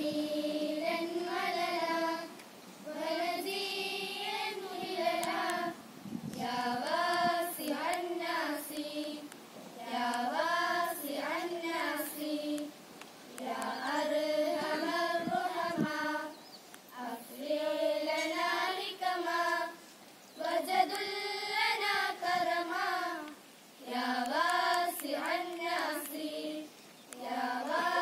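A group of schoolgirls sings an Arabic prayer together, unaccompanied, in a chanted melody. It comes in phrases of about two to three seconds, with short breaths between them.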